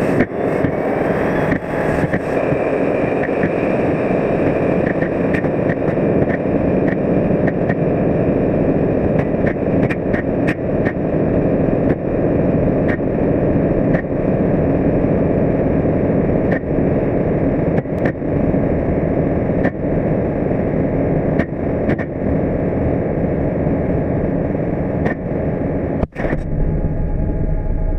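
New Shepard's BE-3 rocket engine firing: a loud, steady rush of exhaust noise shot through with sharp crackles. There is a brief break about 26 seconds in.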